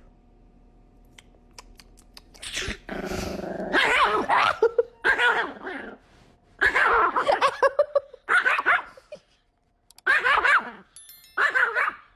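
Small puppy barking and growling in about six short bouts. The first bout starts a couple of seconds in.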